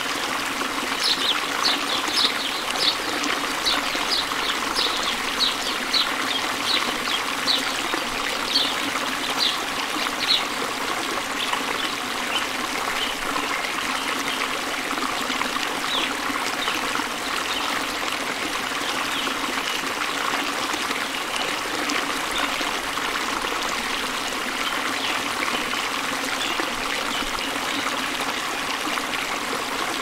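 Steady running water of a trickling stream. Over it, a run of short high chirps repeats about twice a second in the first third, then fades.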